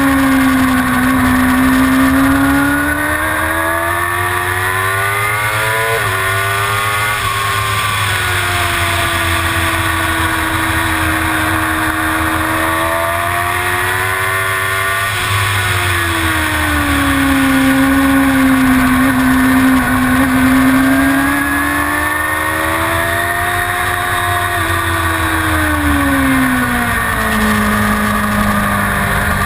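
Suzuki GSX-R750's inline-four engine racing around a circuit at high revs. Its pitch climbs for the first few seconds and breaks sharply about six seconds in at a gear change, holds, falls for a corner, then rises and falls again twice.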